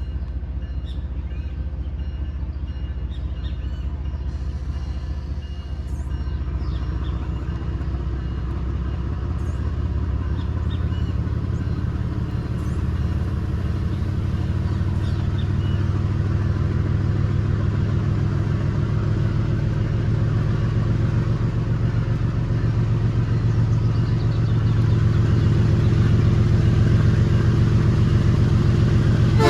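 GE ES43BBi diesel-electric locomotive engine rumbling hard under load as it pulls away, growing steadily louder as it throttles up.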